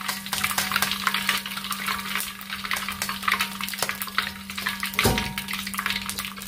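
Hot cooking oil sizzling and crackling in a steel wok, where smoked mackerel tuna has just been fried. A steady low hum runs underneath, and there is a dull knock about five seconds in.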